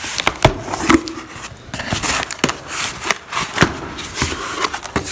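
Scissors slitting the packing tape along a cardboard box's seam, then the cardboard flaps being pulled open: irregular scrapes and rustles with sharp clicks.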